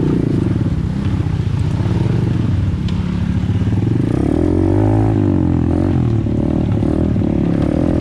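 Apollo RFZ pit bike's single-cylinder four-stroke engine running under the rider on a rough trail, its pitch falling and rising as the throttle changes about halfway through.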